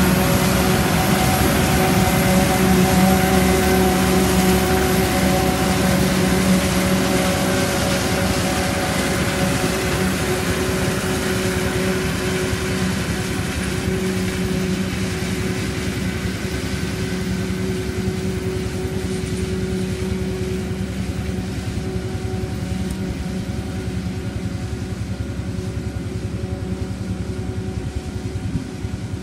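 Heavy farm machinery engine running at a steady pitch during corn silage chopping, slowly growing quieter.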